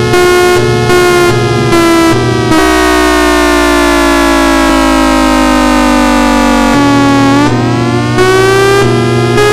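Thunderbolt 1003A outdoor warning siren sounding a chord-like steady tone with a regular pulse. About two and a half seconds in, its pitch falls slowly for about four seconds, then it winds back up near the end and returns to the pulsing tone.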